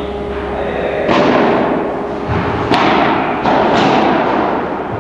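Padel rally: a ball struck back and forth with rackets, several sharp hits that echo in a large indoor hall.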